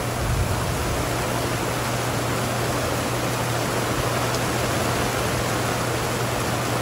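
Heavy rain pouring down, heard from beneath an RV awning: a steady, dense rush of falling water with a low hum underneath.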